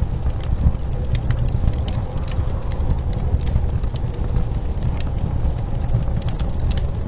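Blizzard wind rumbling low and steady, with a wood fire crackling on top in irregular sharp pops and ticks.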